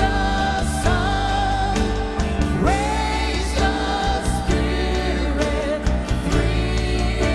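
A worship song sung by a vocal group of two men and two women, with long held notes, over instrumental accompaniment.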